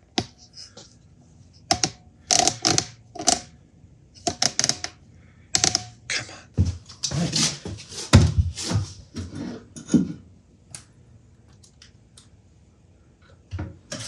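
Irregular handling noise: knocks, clicks and clothing rustle as a person moves around with a cordless drill and kneels down at a floor foot pedal. The clatter is busiest in the middle and thins out over the last few seconds.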